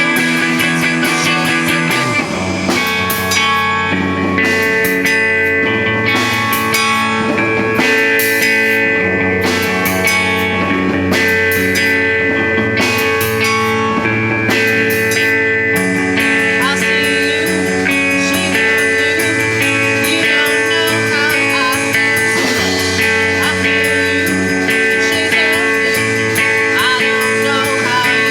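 A live rock band playing a guitar-led song, with sustained guitar notes over drums.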